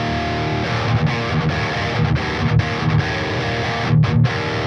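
Distorted electric guitar played through a Quad Cortex neural capture of a Friedman Wildwood 20 amp's overdrive channel. A chord rings out, then a low chugging riff, then a brief stop about four seconds in before another chord.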